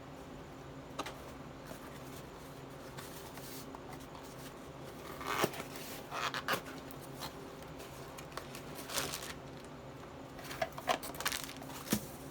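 Intermittent rustles, scrapes and clicks of a package being handled and opened, in scattered clusters, the loudest about five to six seconds in and again near the end.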